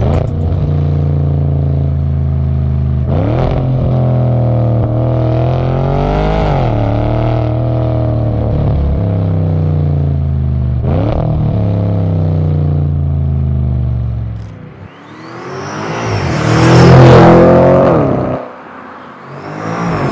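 Tuned Audi S6's twin-turbo V8 with a Milltek full exhaust, heard at the tailpipes while driving: a steady deep exhaust note whose revs swell and fall a few times. Near the end the sound dips briefly, then rises to its loudest in a hard pull with a high whistle over it.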